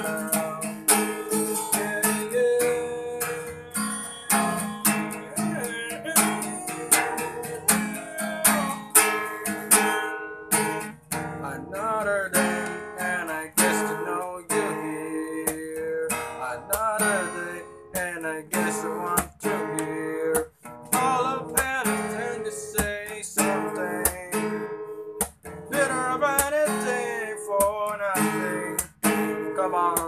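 Acoustic guitar with a capo, strummed chords played steadily as an instrumental break.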